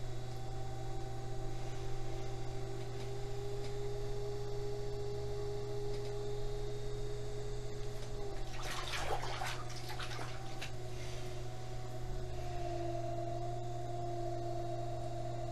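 Electric potter's wheel motor running with a steady hum and whine, the whine stepping down slightly in pitch about eight seconds in and again about twelve seconds in. A brief burst of noise comes around nine to eleven seconds in.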